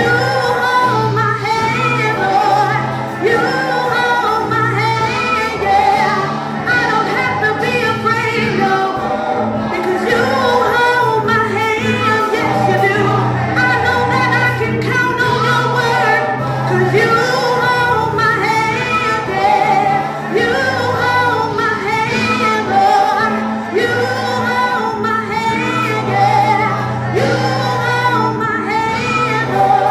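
Gospel worship music with singers and a steady bass line.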